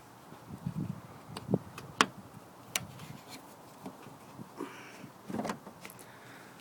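Hands fitting rubber trim pieces into the car's grille surround: a string of sharp clicks and taps, the loudest about two seconds in, with a short stretch of rubbing and handling noise later on.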